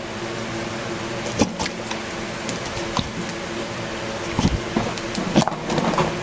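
A steady mechanical hum with a few scattered knocks and clicks.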